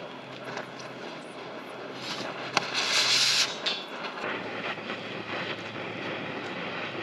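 A sharp click, then a hiss lasting about a second, over a steady low rumble with a hum that drops in pitch near the end.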